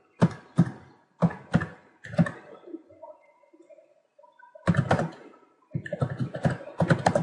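Computer keyboard being typed on: a few separate keystrokes, a short pause, then a quick run of keystrokes in the second half.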